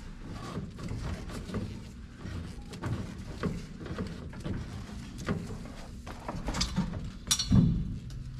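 A pickup's underbody spare-tire hoist being cranked down with a long rod through the rear bumper: irregular metallic clicks and clanks as the rod turns and the tire lowers. Near the end comes a louder clank followed by a thump.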